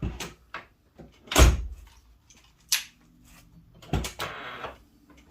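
Fox-body Ford Mustang door being worked to test a newly installed door handle: the latch clicks and the door shuts with heavy thunks, twice heavily and with a couple of sharper latch clicks between.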